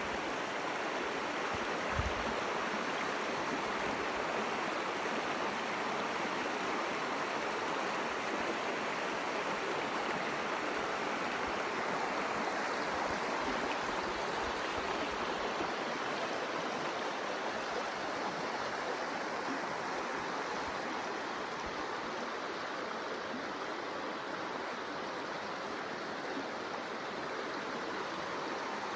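A shallow mountain river running over stones, a steady rushing and babbling of water.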